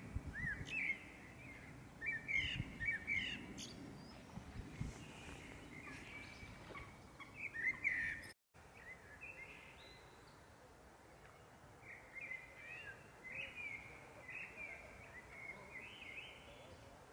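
A songbird singing a run of short whistled and chirping phrases that glide quickly up and down. The song breaks off briefly about eight seconds in, then carries on more faintly, with a low rumble under the first few seconds.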